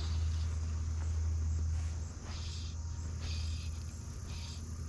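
Insects chirping at dusk in short, high chirps about once a second, over a steady low rumble.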